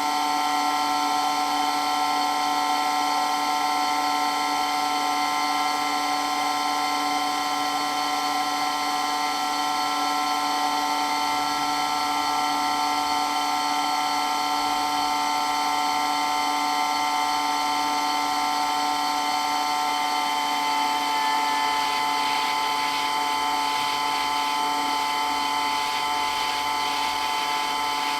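Water pump running steadily with a constant high-pitched whine made of several fixed tones.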